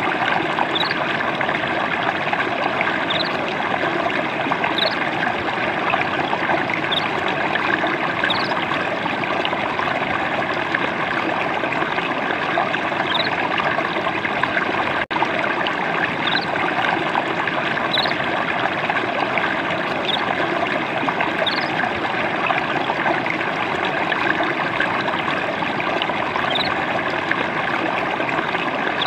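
Steady gentle trickling of a small stream of water, with short high rising chirps about every second or two. The sound drops out for an instant about halfway through.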